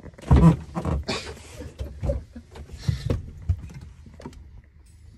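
Handling noise of someone moving about a small narrowboat cabin: a heavy thump about half a second in, then scattered knocks, clicks and rustles of things being shifted, growing sparser towards the end.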